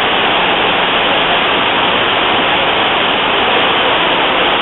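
Dunn's River Falls pouring over its rock steps into a pool: a steady, loud rush of water.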